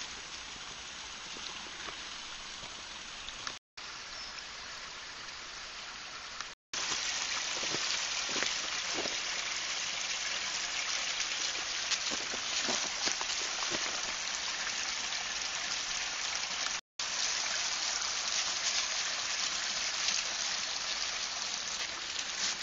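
Dry fallen leaves rustling and crunching underfoot as a cat and a person walk through a thick leaf layer, a steady rushing hiss with soft irregular crunches. It cuts out briefly three times and is louder after the second break.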